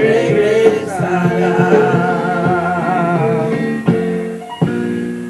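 A woman's voice holding a sung note with a wide vibrato over sustained guitar chords, with two fresh chord strokes near the end: the close of a gospel song.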